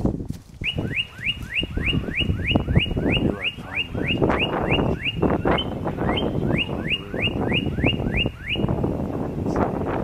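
A bird sound effect dubbed onto the soundtrack: a long run of quick, identical down-slurred chirps, about four a second, with a brief hitch midway, stopping near the end. A low rumbling noise runs underneath.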